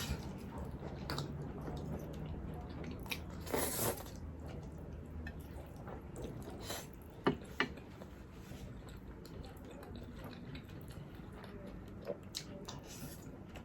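Close-miked chewing and wet mouth sounds of a person eating, with a short noisy burst about three and a half seconds in and two sharp clicks a fraction of a second apart about seven seconds in.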